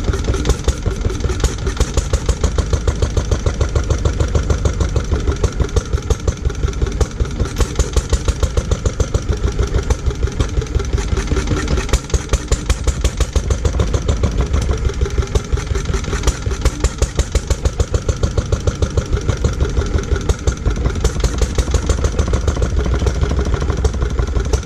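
Lister D single-cylinder petrol stationary engine running steadily after its restoration, with an even beat of about four or five strokes a second.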